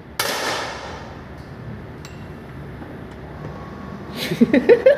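A 10-metre air pistol fires a single shot just after the start: a sharp pop whose echo trails off over about a second. A man's voice comes in near the end.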